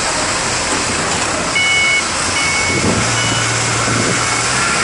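Heavy diesel machinery running steadily in a container yard, with an electronic warning alarm beeping three times partway through, like a vehicle's reversing alarm.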